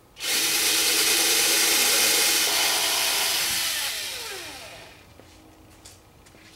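Electric drill with a 1/16-inch bit running steadily for about four seconds while boring a small starter hole into wood, then the motor winding down with a falling pitch.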